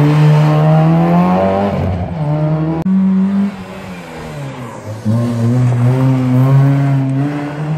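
Two Nissan Micra rally cars in turn accelerating hard out of a tight junction. The first engine's revs climb for almost two seconds and drop at a gear change. The second car's engine comes in loud about five seconds in and climbs again.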